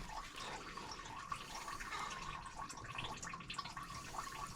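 Used engine oil dripping and trickling as it drains off during an oil change, with a few faint clicks.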